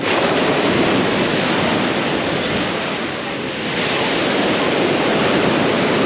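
Small Mediterranean waves breaking on a sand beach and washing up the shore: a steady rushing surf that swells again past the middle as another wave breaks.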